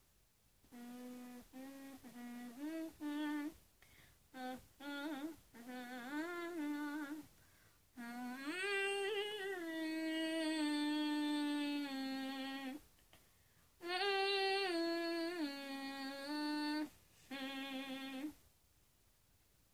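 A young woman humming a tune with her mouth closed: short notes first, then longer held notes in two phrases, with brief pauses between.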